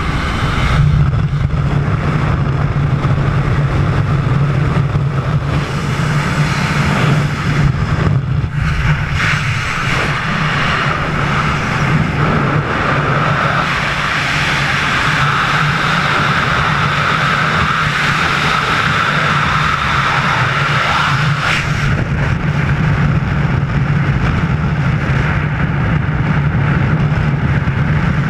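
Wind rushing over a helmet-mounted camera's microphone in skydiving freefall, a loud, steady rush of air that starts as the jumpers leave the airplane door.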